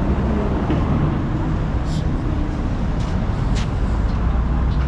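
Steady rumble of road traffic, with vehicles running past, and a few faint brief high clicks.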